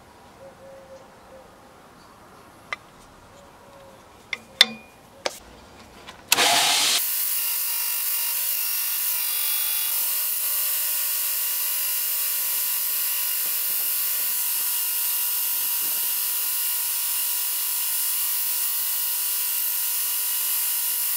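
A few light clicks, then about six seconds in a belt grinder comes in suddenly and runs steadily with a high hiss, sanding the edge of a stabilized oak knife handle scale held against the belt.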